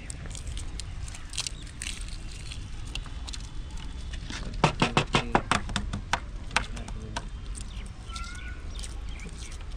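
Boiled eggs being shelled by hand: scattered small clicks and crackles of eggshell, with a quick run of about eight sharp taps about halfway through, over a steady low rumble. Birds chirp briefly near the end.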